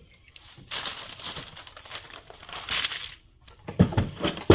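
A sheet of printed food paper crinkling and rustling as it is spread out, followed near the end by a few sharp knocks.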